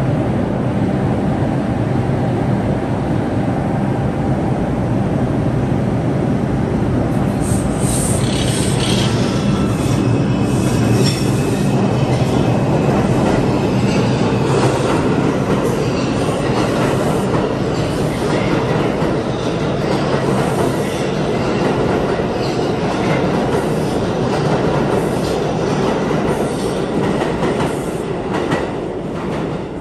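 New York City subway trains running through the station: a steady heavy rumble of cars on the rails. From about a quarter of the way in it is joined by high wheel squeal and rail clatter.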